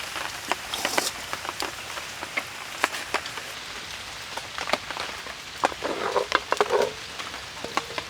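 Food sizzling as it stir-fries in hot oil, a steady hiss broken by many sharp crackles and pops.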